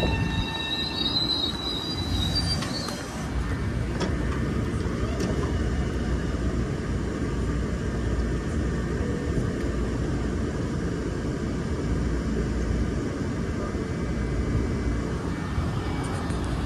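M7 electric multiple-unit commuter train moving alongside the station platform: a steady, loud rumble of steel wheels on the rails, with a brief high squeal about a second in.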